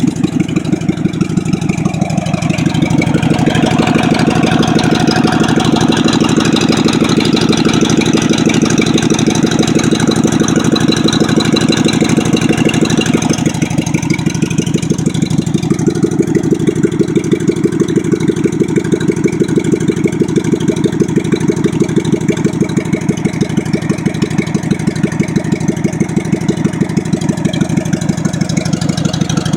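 Craftsman lawn mower engine running steadily with an even firing beat. Its sound shifts about two seconds in, drops around the middle and picks up again a couple of seconds later, as the engine speed changes.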